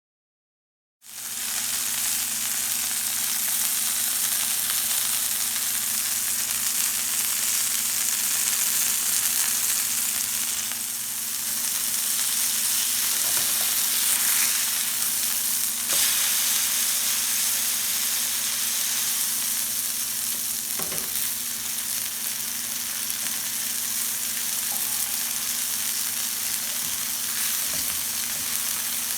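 Minced chicken patty frying in butter on a grill pan, a steady sizzle. The sound drops out completely for about a second at the start.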